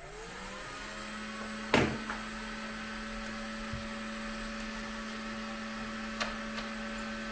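Heat gun for bending acrylic tubing switched on: its fan motor rises in pitch as it spins up, then runs with a steady hum and whine. A sharp knock about two seconds in and a lighter click later on.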